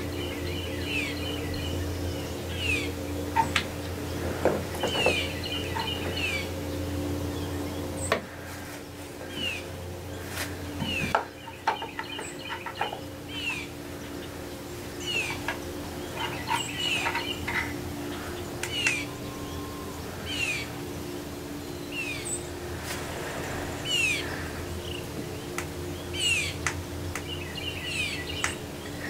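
Small birds chirping on and off: many short, downward-slurred chirps and quick runs of repeated high notes, over a steady low hum.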